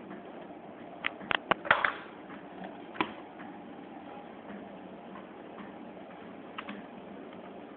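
Sharp plastic clicks and knocks from handling a Miele washing machine and dryer: a quick cluster of loud clicks about a second in, another click about three seconds in, and a couple of light clicks near the end as the dryer's programme knob is turned. All of this sits over a steady low hum.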